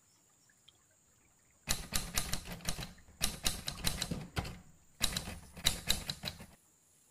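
Dry grass and stalks crackling and rustling as they are pulled away by hand to clear the way to an eel hole at the water's edge, in three bouts of dense crackling about a second each.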